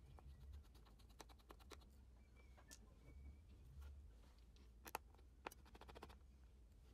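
Near silence with scattered faint clicks and light scratches of a small precision screwdriver working the tiny screws on a laptop's LCD control board; the two clearest clicks come about five seconds in.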